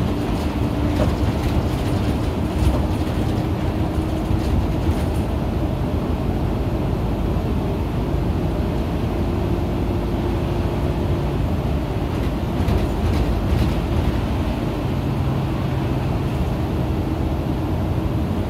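Isuzu KL-LV280N1 city bus's diesel engine and road noise heard from inside the cabin while the bus is under way, a steady drone whose engine note shifts in pitch now and then.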